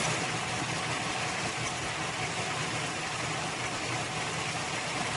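Custom 1965 Chevrolet Impala's 377 small-block Chevrolet V8 with dual-quad carburetors idling steadily.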